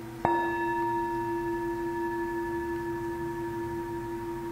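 Metal singing bowl, held on the palm, struck once with a wooden striker about a quarter second in, then ringing on with a steady low tone and several fainter higher overtones that fade only slowly.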